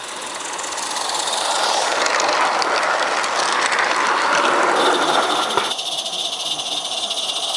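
A 16mm-scale live-steam garden locomotive and its train running past close by: a rushing hiss of steam and wheel noise that grows louder as it nears and passes, with faint clicking from the wheels on the track. About five and a half seconds in it changes abruptly to a steadier hiss of a steam locomotive running further off.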